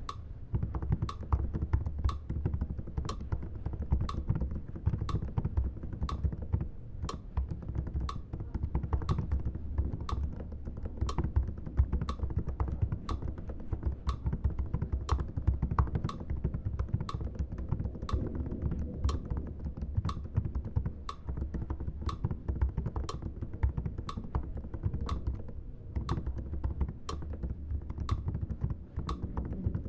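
Computer keyboard keys struck by fingers one after another at an even pace, about two keystrokes a second, over a steady low hum.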